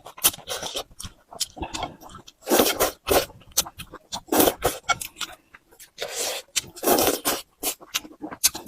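A person slurping and chewing flat noodles in a series of noisy bursts, with short sharp clicks between them.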